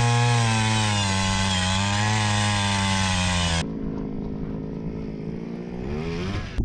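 Power ice auger running hard as it bores through the ice, its pitch sagging and recovering under load. About three and a half seconds in it drops to a lower, quieter run as the auger is lifted out, then rises again near the end.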